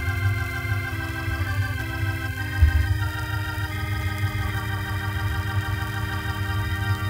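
Heavy psych rock from 1970: sustained organ chords shifting every second or so over a rumbling low bass, with one low thump about two and a half seconds in.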